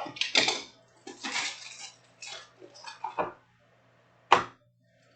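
Trading card packs and their packaging being handled: a run of rustles and scrapes, then a single sharp tap about four seconds in.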